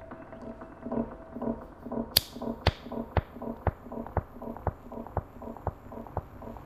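Clock ticking steadily, about two ticks a second, with one much sharper click about two seconds in. A soft pulsing tone keeps pace beneath the ticks.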